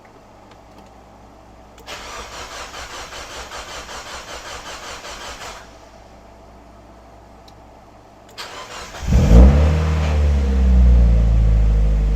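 Mazda NB Miata's four-cylinder engine being started after a fuel sending unit and fuel filter replacement. The starter cranks rhythmically for a few seconds without the engine catching, then cranks again briefly and the engine fires about nine seconds in, flares up and settles into a steady idle. The engine is running on the new fuel pump.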